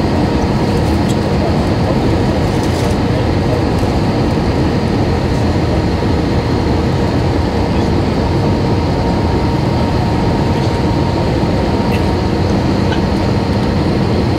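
Steady drone of jet engines and rushing air heard inside an airliner's passenger cabin in flight, holding level with no change.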